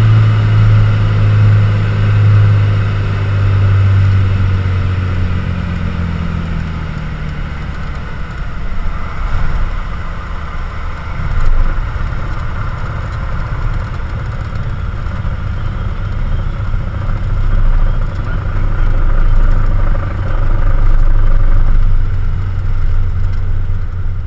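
Cessna U206G Stationair's six-cylinder engine and propeller droning steadily inside the cockpit, then drawn back so its tone slides down and fades about six or seven seconds in. A rough rumble of wind and wheels follows, with a sharp bump near the middle as the aircraft touches down and rolls out along the runway.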